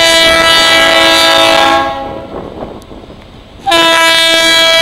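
Air horn of a diesel freight locomotive, an EMD GP38, sounding two long blasts: one of about two seconds, then after a short gap a second one beginning near the end. It is the horn signal for an approaching road crossing.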